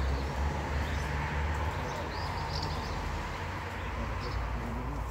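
Garden ambience: a steady low rumble and a few faint, high bird chirps, around the middle and again near the end.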